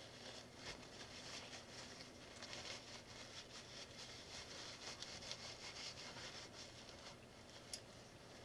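Faint clicking and rustling of small plastic building bricks being handled and picked through, with one sharper click near the end.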